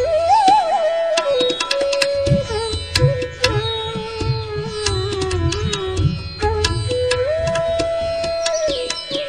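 Background music in an Indian classical style: a melody of held notes with slides between them, over tabla-style drum strokes.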